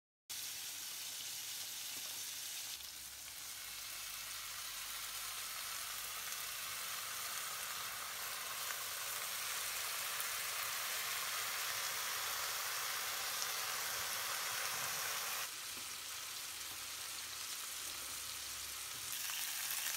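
Pork sausages and rashers of back bacon frying in a non-stick frying pan: a steady sizzling hiss of hot fat. It starts abruptly just after the beginning and changes level suddenly twice.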